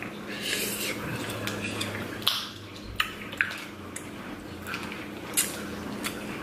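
Eating sounds of crab legs being cracked and picked at: sharp clicks of shell and utensils, with chewing and short noisy bursts about half a second, two seconds and five seconds in.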